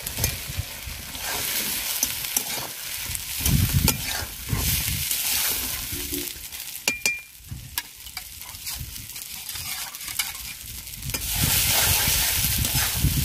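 Koi fish sizzling as they are tipped into hot mustard oil and spice paste in a metal karai, then stirred, with a metal spatula scraping and clicking against the pan. The sizzle grows louder near the end as the fish is turned and fried in the masala.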